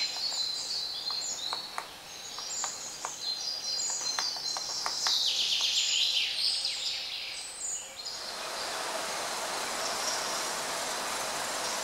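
Forest birds chirping and singing, with scattered sharp taps of a white-backed woodpecker pecking at dead wood as it forages. About eight seconds in this gives way to a steady, even rushing noise.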